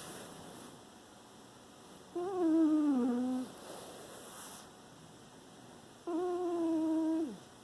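Domestic cat snoring in its sleep: two drawn-out snores with a clear pitch, about four seconds apart. Each lasts a little over a second; the first slides down in pitch, and the second holds steady before dropping off at the end.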